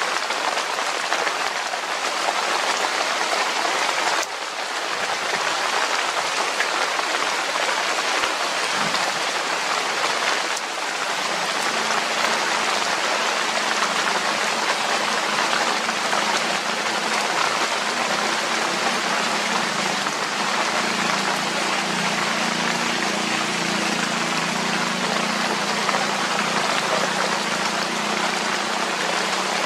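Steady rain falling, an even hiss throughout. A faint low hum joins about twelve seconds in.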